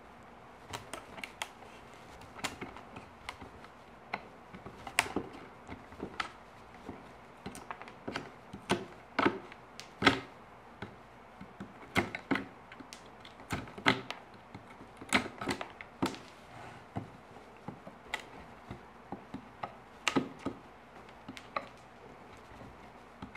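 A hand chisel clearing the waste out of saw-cut notches in a clamped row of pine lattice bars: irregular sharp wooden clicks and knocks as the chisel is worked in the notches and the chips break free.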